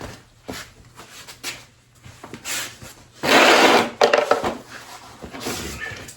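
Hands working on motorcycle fork and front-wheel parts: scattered clicks and knocks, and a loud scraping rub lasting nearly a second about three seconds in.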